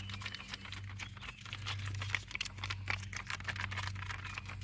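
Rapid, irregular clicking and crinkling from handling plastic tire-sealant packaging, over a steady low hum.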